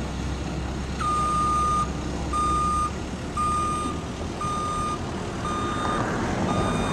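Backup alarm of a CAT 262C skid steer loader beeping about once a second as it reverses, starting about a second in, over a steady low diesel engine drone.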